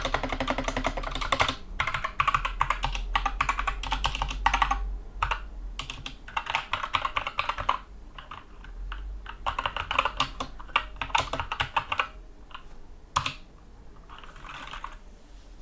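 Typing on a Skyloong 64-key mechanical keyboard with Gateron Brown tactile switches: fast runs of key clicks in bursts, thinning to scattered single keystrokes near the end, with one sharper stroke about 13 seconds in.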